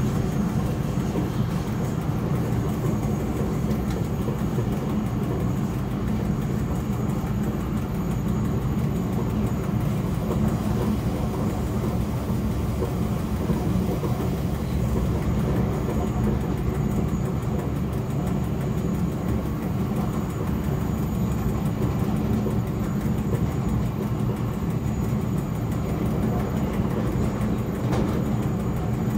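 SLM Re 420 electric locomotive and its train running steadily along the track, heard from the driver's cab: a constant low rumble of wheels on rails, with a faint steady high whine.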